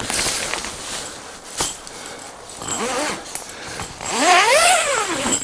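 A tent zipper rasping as it is pulled. It is followed by a short wail and then a longer, louder wail, each rising and then falling in pitch, voice-like.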